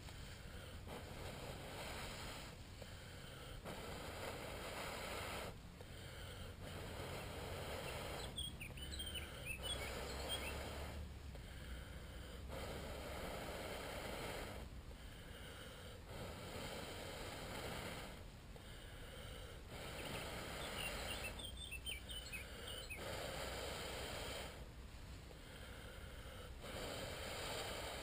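A person blowing long, steady breaths into a dry-grass tinder bundle to fan a smouldering ember into flame, one blow every two to three seconds with short pauses to draw breath. The ember is steel wool taken from a Zippo lighter.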